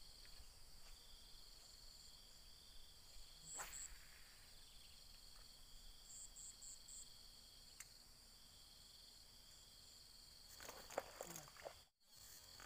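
Faint, steady high-pitched drone of insects, with a few short high pips around the middle and scattered faint clicks and rustles near the end.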